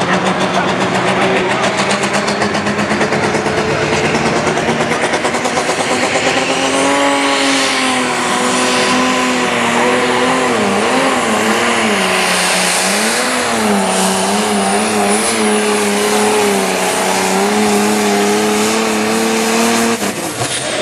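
Pro stock pulling tractor's turbocharged John Deere diesel running at high revs as it pulls a weight-transfer sled. The engine note climbs, wavers up and down under the load, holds steady with a thin high whistle above it, and drops away near the end.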